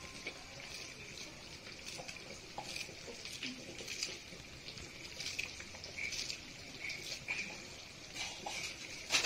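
A pan of curry simmering quietly on a gas stove, a faint steady hiss with small crackles, as fresh coriander leaves are torn and dropped in. A short sharp knock comes near the end.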